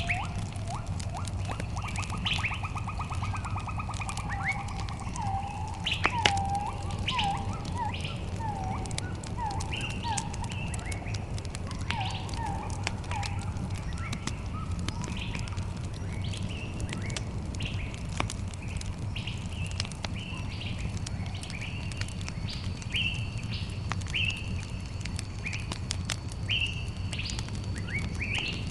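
Several birds singing and chirping: a fast trill about a second in, then runs of short slurred notes and higher chirps, with a thin high note held near the end. Beneath them, a steady low rumble and frequent sharp crackles of a campfire.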